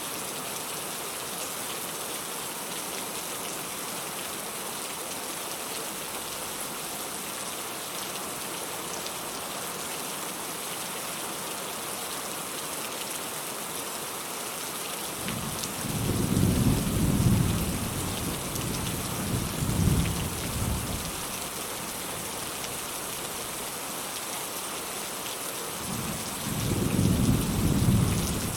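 Steady rain falling, with distant thunder rolling twice as low rumbles: one starting about halfway through and lasting several seconds, another swelling near the end.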